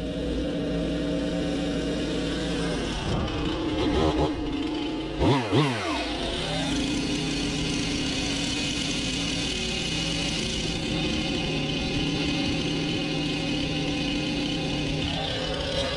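Engine running steadily, with a quick rise and fall in pitch about five seconds in.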